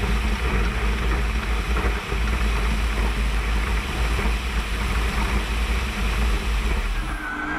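Off-road race car heard from inside its cabin at speed on a dirt track: engine running under a steady deep rumble of tyres and chassis on rough ground. Just before the end the sound changes abruptly to a clearer, pitched engine note.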